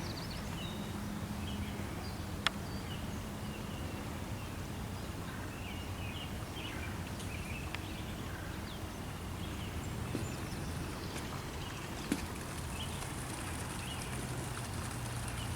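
Outdoor ambience: a steady low hum with scattered faint bird chirps and two sharp clicks, one a few seconds in and one near the end.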